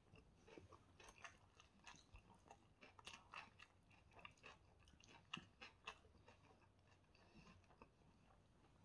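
Faint close-up eating sounds: chewing, with a scatter of small wet clicks and crackles as fingers gather shredded chicken shawarma and flatbread on the plate.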